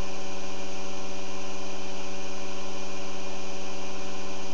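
Experimental Bedini-style pulse motor running steadily, its rotor magnets pulsing past the coils: a constant, even hum with several overtones.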